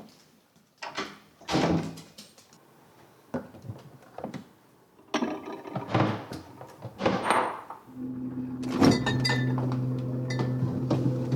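Several separate thuds and knocks, then a steady low hum that starts about eight seconds in, with a sharp click a second later.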